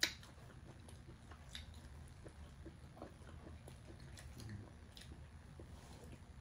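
Faint close-up chewing with small wet mouth clicks as a person eats, and one sharp click right at the start.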